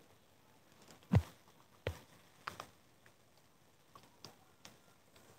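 A few scattered short clicks and taps over a quiet background, the loudest a soft knock about a second in.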